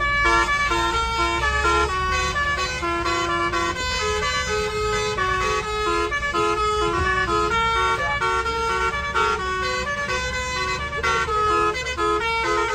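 Bus's multi-tone musical air horn (a basuri 'telolet' horn) playing a continuous melody of quick, stepped notes, over the steady low rumble of the moving bus.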